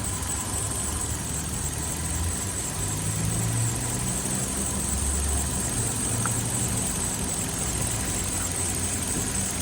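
2012 Hyundai Accent engine idling steadily while the steering is worked from lock to lock, with one faint click about six seconds in. This is a check for play in the steering rack, which the mechanic finds worn and clacking.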